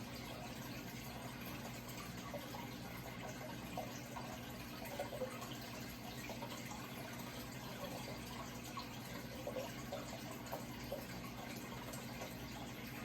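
Running water trickling steadily with small scattered gurgles, over a steady low hum.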